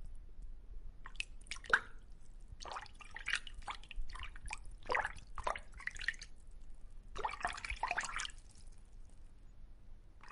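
Aquarium water bubbling and dripping: quiet, irregular small plops and gurgles.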